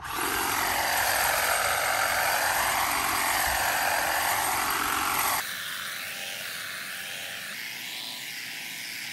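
Hedge trimmer running and cutting through ficus foliage, its motor whine wavering up and down in pitch. About five seconds in the sound drops abruptly quieter and thinner, then runs on steadily.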